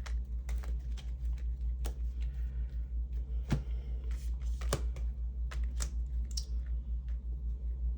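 Light, irregular clicks and taps of tarot cards being handled, with one sharper snap about three and a half seconds in and another just before five seconds, over a steady, pulsing low hum.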